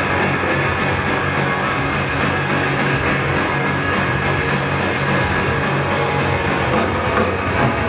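Rock band playing live through a stadium sound system: electric guitars, bass and drums in a loud, dense, continuous wall of sound.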